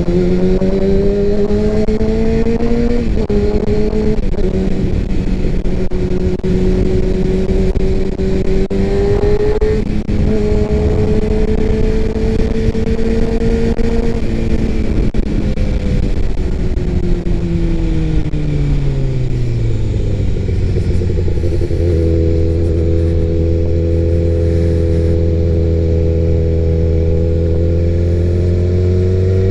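Kawasaki sport bike's engine heard from the rider's seat over wind rush. It pulls up through the gears with the pitch climbing and dropping at two shifts, then winds down as the bike slows, runs steady, and picks up again near the end.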